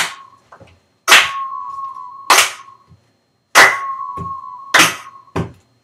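Pop song playback, an intro beat of sharp snap-like hits about every second and a bit, with a held high note sounding between the hits.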